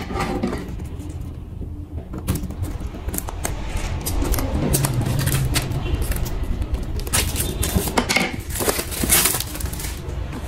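Scissors cutting and plastic shrink-wrap crinkling and tearing as it is cut off a phone box, with scattered clicks and handling knocks. The crinkling is loudest about seven to nine and a half seconds in.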